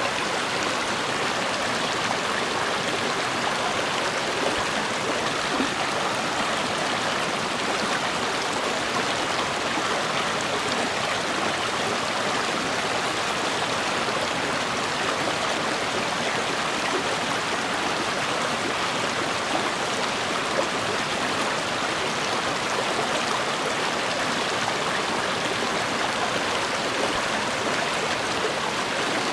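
A river flowing over rocks: a steady, unbroken rush of running water.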